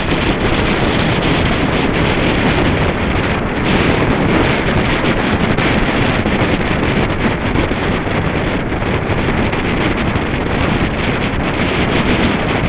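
Steady, loud wind rushing over the microphone of a camera mounted on a moving road bike's handlebars.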